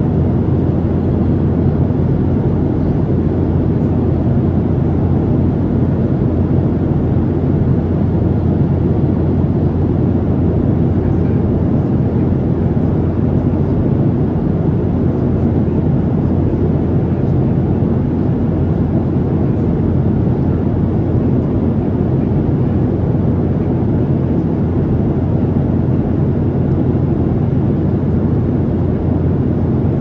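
Steady cabin noise of a Boeing 737-700 in flight: the CFM56 engines and the rush of air over the fuselage make an even, low rumble that does not change.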